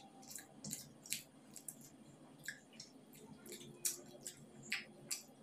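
Close-up eating sounds from someone eating fried rice by hand: wet smacking and clicking of the mouth while chewing, coming as irregular short clicks about two or three a second.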